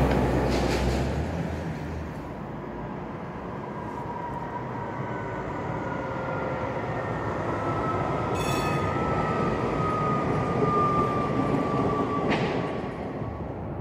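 A city bus rumbles past in the first second or two, then a tram runs by on its track with a whine that slowly falls in pitch and grows louder before fading near the end.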